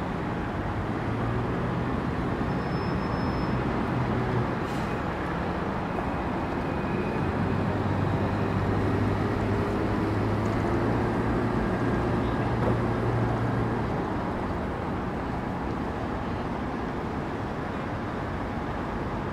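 Street traffic with city buses and cars running past. A low engine drone swells for a few seconds near the start and again through the middle.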